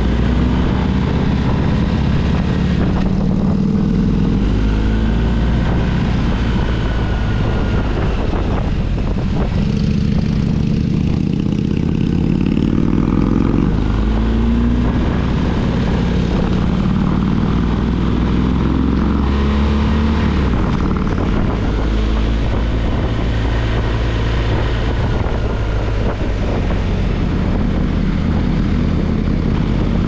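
Motorcycle engine heard onboard while riding, its note climbing and dropping back several times with the throttle, over wind rush.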